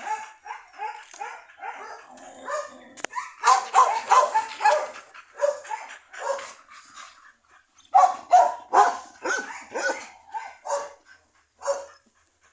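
Dogs barking and yipping in quick series of short calls, loudest in two bursts about four and eight seconds in.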